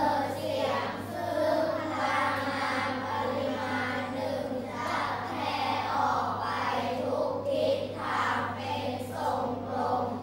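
A class of primary-school children reading a slide aloud together in unison, their voices running on without a break.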